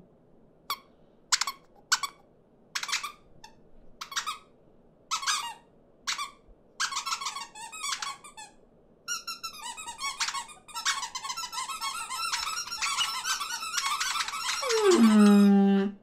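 Cartoon bird voices: short squeaky peeps from small animated birds, one every half second or so at first, thickening into a dense overlapping chatter of many birds. Near the end a louder call slides down in pitch.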